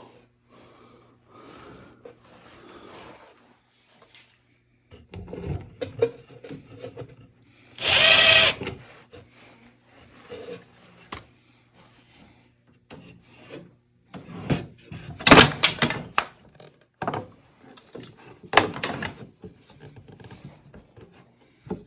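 Power drill run in one short burst about eight seconds in, drilling into a plywood drawer front, among knocks, scrapes and clatter of wooden pieces being handled and set in place, the loudest knocks a few seconds later.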